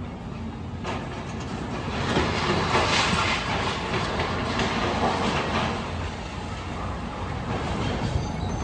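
A train passing on the rails with a steady rumble and wheel clatter. It swells about two seconds in and fades after about six.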